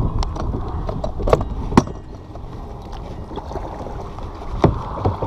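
Wind rumbling on the microphone aboard a fishing kayak, heaviest in the first two seconds, with four sharp knocks as the paddle and gear are handled on the boat, the loudest in the second second.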